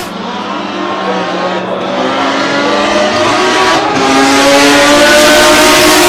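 Mazda Eunos Cosmo's 20B three-rotor turbo rotary engine pulling under acceleration, its pitch and loudness climbing steadily. The pull has two brief dips, about one and a half and four seconds in.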